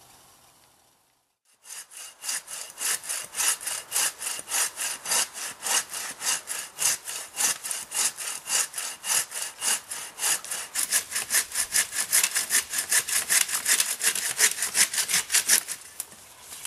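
Hand bow saw cutting through a dead fallen tree trunk in quick, even strokes, about four a second. It starts about a second and a half in, grows louder toward the end and stops shortly before the close.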